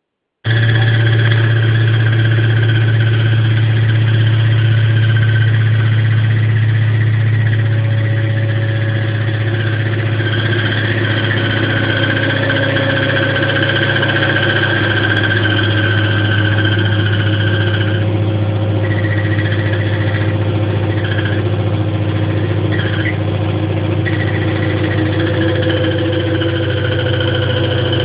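Electrolux LSE09 washing machine in its spin cycle, running with a loud steady hum and high whining tones over it: the abnormal spin noise the machine has developed.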